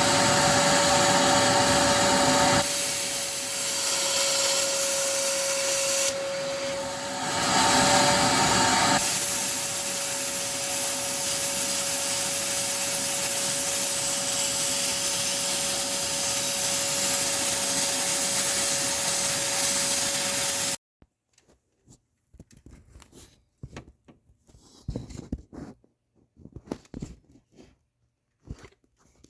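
Shop vacuum running steadily with a hum-like tone that dips briefly about six seconds in, then cuts off suddenly about twenty-one seconds in. Scattered light knocks and clicks of handling follow.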